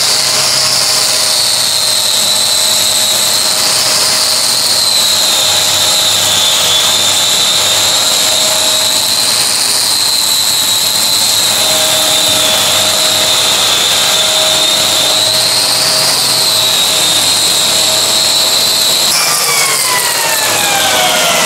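Angle grinder with a metal-cutting disc, set in a homemade jig, running at a steady high whine as it mills a V-groove into gypsum board. The pitch sags slightly now and then under load. A shop vacuum draws off the dust, and about 19 s in the grinder is switched off and its whine falls away as the disc spins down.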